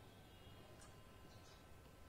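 Near silence: quiet room tone with a couple of faint soft ticks as a puri is torn and folded by hand.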